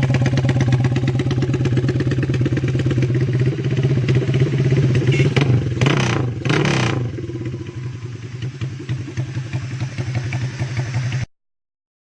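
Honda CB motorcycle engine running with no exhaust muffler, a rapid, even beat of open-pipe firing pulses. About six seconds in it briefly rises and falls in pitch, then runs more quietly until the sound cuts off just before the end.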